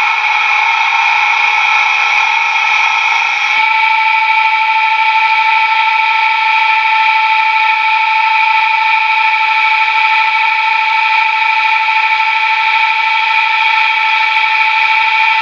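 Motors of a CNC-driven Unimat lathe running, heard as a steady high-pitched whine of several tones while the lathe turns a wooden part. About three and a half seconds in, the whine shifts slightly and becomes a cleaner tone.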